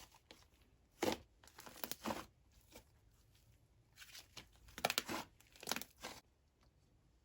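Slime being squished and stretched by hand, giving short crackling bubble pops: a couple early on, then a closer run of pops about four to six seconds in.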